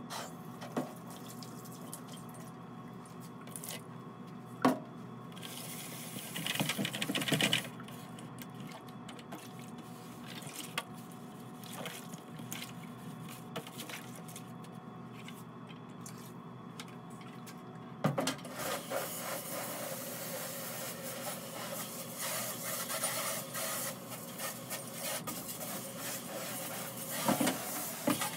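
Liquid glaze being poured out of a plastic bucket, heard as a steady pouring and splashing hiss in the last third. Earlier come a sharp knock and a brief clatter of the plastic bucket being handled.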